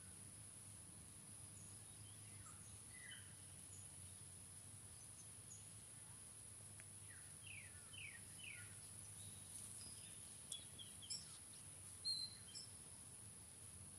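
Quiet outdoor ambience with a steady faint high hiss, over which small birds call now and then in short falling chirps, three in quick succession partway through. A few louder short, sharp calls or clicks come near the end.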